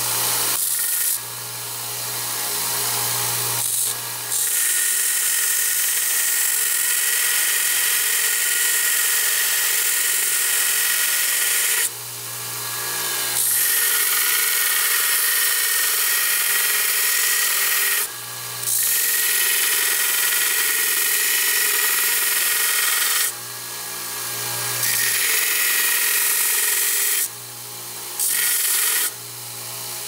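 Small bench belt sander running, with a steel blade blank pressed to its belt: a loud, bright grinding hiss while the high-carbon steel is in contact, broken by several short pauses where the blade is lifted off and only the motor's hum is left.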